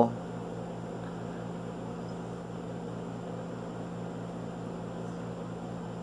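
Steady background hum with a faint hiss, unchanging throughout: room noise with no distinct event.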